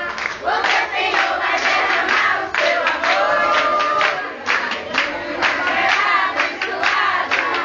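A group of family and friends singing a birthday song together in a loose chorus, clapping in time.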